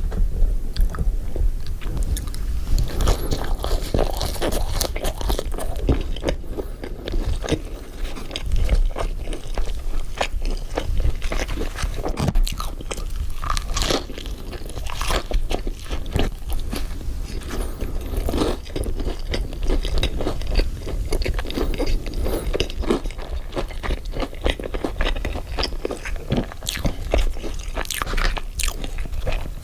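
Close-miked eating of a burger: bites and chewing with a crunchy, crackling texture, made of many small clicks one after another.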